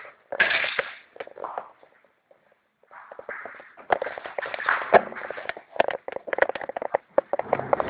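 Irregular footsteps and rustling of someone moving over rough ground. The knocks come thick and uneven from about three seconds in, after a short lull.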